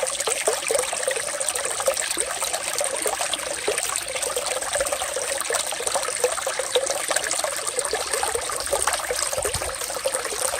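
Water trickling steadily, with many small splashes and drips running together.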